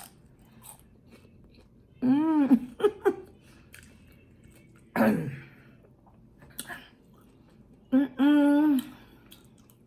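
A woman chewing food with soft mouth sounds, breaking three times into short voiced 'mmm' sounds of enjoyment, the last one held for almost a second.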